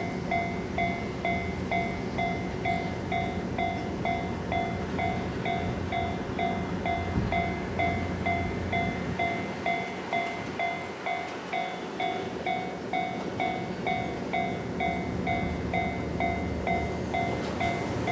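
Japanese railway level-crossing warning bell ringing: an electronic ding repeated about three times a second at a steady rate, signalling an approaching train.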